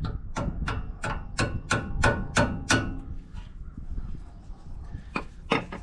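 Hammer striking metal in a quick run of about nine blows, roughly three a second, each with a short ring, then two more blows after a pause near the end.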